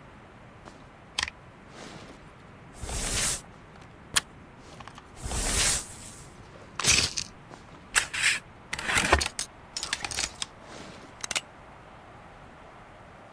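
Gun handling noises between blunderbuss shots: a few sharp clicks and several short scraping, rustling bursts.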